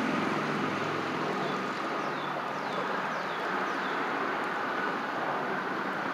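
Steady road traffic noise, with a vehicle's engine hum fading away in the first second. About two seconds in, a bird gives a short run of four quick calls, each a falling whistle.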